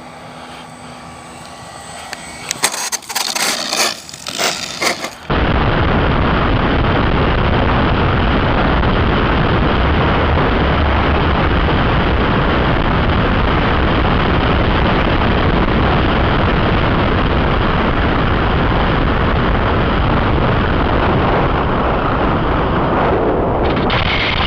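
Loud, steady rushing noise like wind blowing hard on a microphone, starting suddenly about five seconds in, after a few quiet seconds with light clicks.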